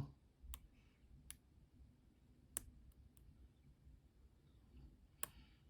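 Near silence broken by about five faint, sharp clicks at irregular intervals, from the pick and pin stacks inside an MCM dimple lock cylinder being float-picked under tension. Pins are dropping back down as the picker tries to float one up.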